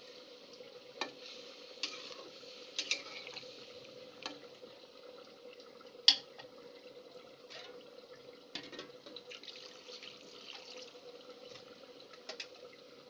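Fish and pointed gourd curry bubbling in a metal pot, with a spatula stirring and tapping against the pot now and then; the sharpest tap is about six seconds in.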